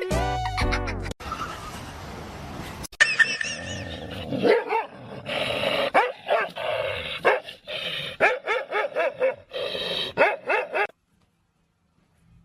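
A dog barking and yipping in a quick run of short calls, starting about three seconds in and stopping suddenly near the end.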